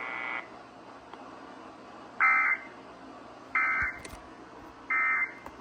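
Emergency Alert System end-of-message from a weather radio: three short buzzy bursts of SAME digital data tones, about a second apart, over a faint hiss of radio static. They mark the end of a tornado warning broadcast. A steady tone cuts off about half a second in.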